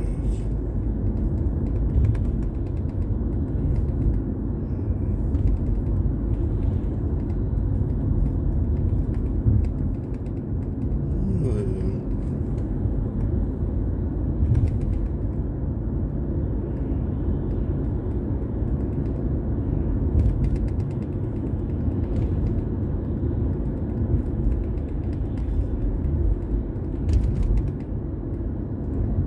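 Steady low rumble of a car driving on the road, with scattered creaks and clicks over it and a brief squeak about halfway through.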